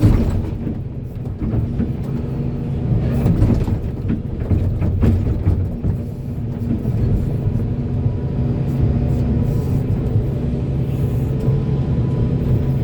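Volvo excavator's diesel engine running steadily under load, with a few knocks and scrapes in the first half from the bucket working soil.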